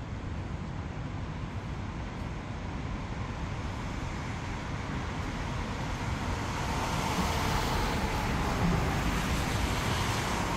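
Urban road traffic: a steady low rumble of passing vehicles, growing louder and hissier over the last few seconds.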